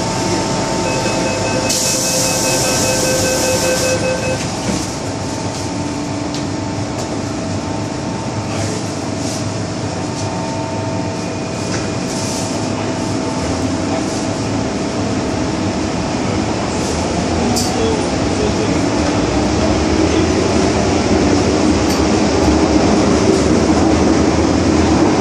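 Inside an MTR M-Train car: evenly pulsed door-closing warning beeps with a loud hiss about two seconds in as the doors shut, then the train pulls away, its motor whine rising slowly and the running noise growing louder toward the end.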